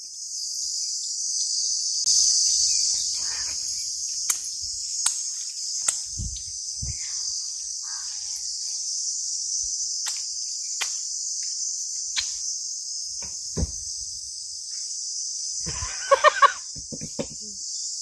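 Steady, high-pitched chorus of insects shrilling without a break, with a few small clicks and soft thumps scattered through it and a brief voice near the end.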